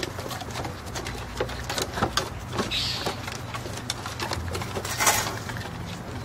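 Glen of Imaal Terrier puppies' paws and claws clattering on slatted plywood ramps as they climb and scramble over them: irregular clicks and knocks, with a louder knock about five seconds in.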